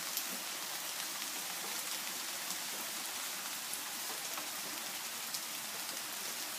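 Rain falling steadily: an even hiss with occasional sharp ticks of drops striking.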